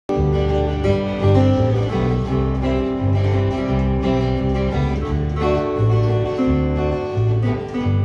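Live guitar trio, a resonator guitar, an acoustic guitar and an electric guitar, playing an instrumental intro, with a strong low line of notes changing every half second or so under strummed chords.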